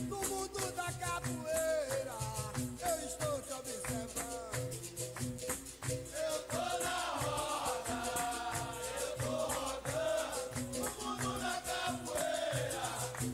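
Capoeira music: a rhythmic pattern of struck notes and a shaken rattle, typical of a berimbau played with a caxixi, with voices joining in song about halfway through.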